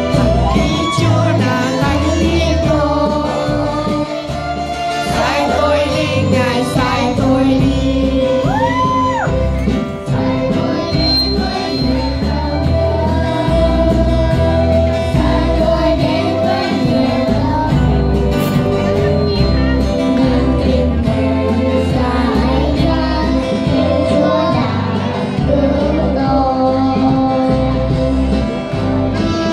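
Children's choir singing a Vietnamese hymn together over instrumental accompaniment, with a steady beat in the bass.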